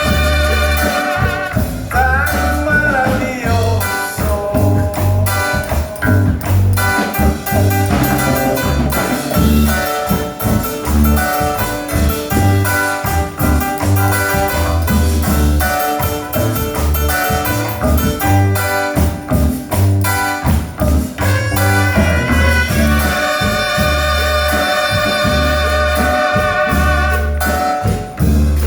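Loud music with brass horns over a steady bass beat.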